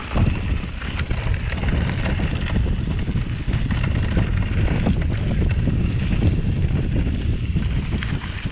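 Wind buffeting the camera's microphone as a mountain bike rolls over a rough dirt trail, a steady low rumble broken by occasional knocks and rattles from the bike.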